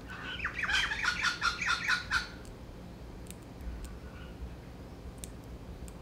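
Crimson rosella chattering: a rapid run of harsh notes, about seven a second, lasting about two seconds.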